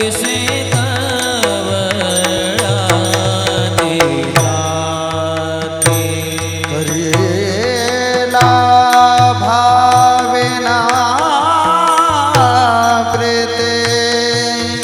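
Warkari kirtan music: a male voice draws out a long, ornamented melody that glides up and down, over steady sustained accompaniment, with a repeating pakhawaj drum beat and sharp clicks of taal hand cymbals.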